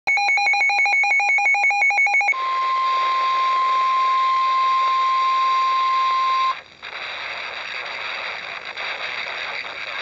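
NOAA weather radio sounding a warning alert: about two seconds of rapid pulsing electronic beeps, then a steady, loud 1050 Hz warning alarm tone for about four seconds. The tone cuts off suddenly into steady radio static.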